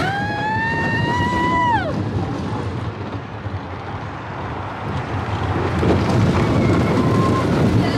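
Slinky Dog Dash roller coaster running, with a loud rush of wind across the microphone and the rumble of the train. In the first two seconds a single held note rises, holds and then falls away.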